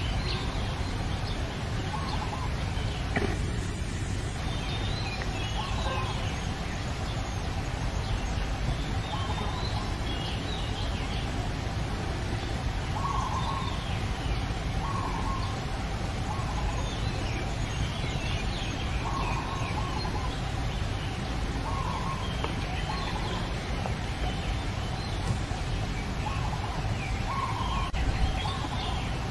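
Short animal calls repeating every second or two, with fainter high chirps between them, over a steady low rumble.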